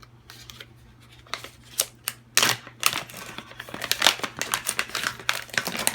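Packaging being handled and opened: crinkling rustles and scattered clicks, sparse at first, then dense and loud from about two and a half seconds in.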